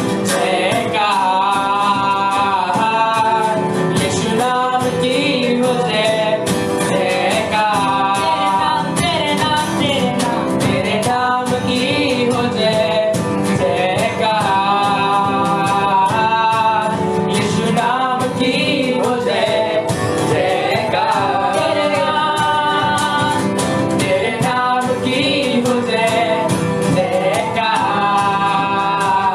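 Live worship music: a singing voice over band accompaniment, playing continuously.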